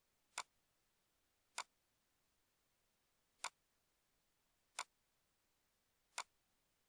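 Computer mouse clicks: five single sharp clicks, spaced irregularly a second or two apart, over near silence.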